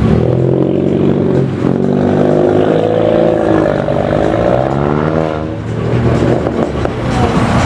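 McLaren 765LT's twin-turbo V8 pulling away. Its note climbs in pitch over the first few seconds, then drops and fades as the car moves off.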